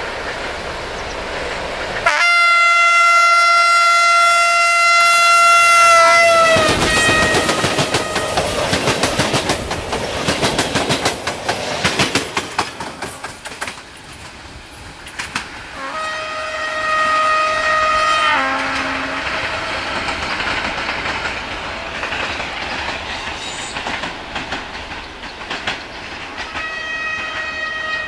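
Air horn of a CFR 060-DA (LDE 2100) diesel-electric locomotive sounding a loud blast of about four seconds, which drops in pitch as it ends. It is followed by the clickety-clack and rattle of the train's coaches passing over the rail joints. Two more horn blasts come later, the second of about two seconds and the last one fainter near the end.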